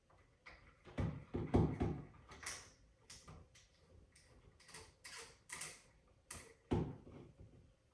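Hands working wires and a switch in an electrical wall box: irregular clicks, knocks and short scrapes, with a cluster of heavier knocks about a second in and another near the end.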